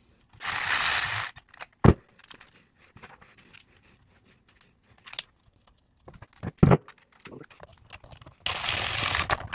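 Hands working on an engine intake manifold: sharp metallic clicks and clinks of parts and tools, with two noisy rushes about a second long, one near the start and one near the end.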